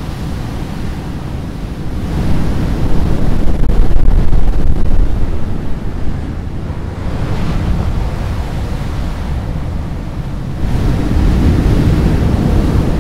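Ocean surf: waves breaking and washing up the beach in about three swells, the loudest about two to six seconds in, over a low rushing rumble.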